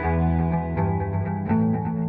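Background music with guitar, steady notes over a low bass line.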